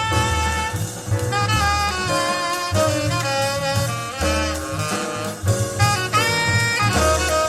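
Instrumental jazz with a saxophone-like lead playing held melody notes over a deep walking bass, played back through the Horn X2 horn module and 8-inch Foundation cabinets and recorded in the room, with no DSP or room correction.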